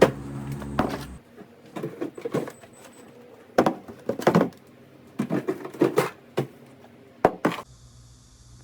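Background music that stops about a second in, followed by a series of short knocks, clicks and clinks of hard household objects being handled and set down, in small clusters.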